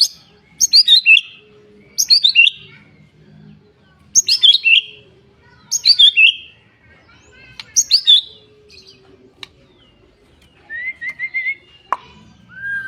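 Songbird singing in loud, short bursts of sharp high notes, one burst about every two seconds. Near the end comes a quicker run of lower, rising notes.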